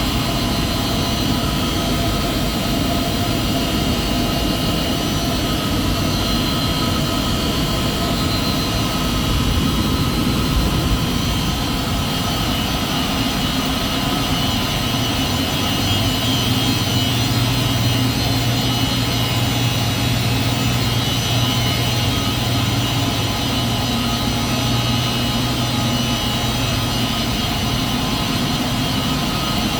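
HVAC system running with a steady airy rush and several steady tones. A low drone joins about halfway through and stops near the end: the abnormal noise heard when the damper opens.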